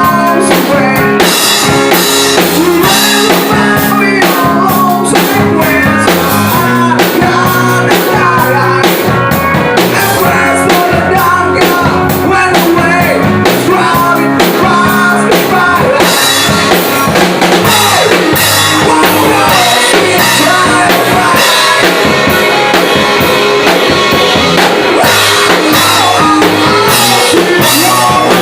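Rock band playing loudly, with a drum kit keeping a steady beat under electric guitar lines.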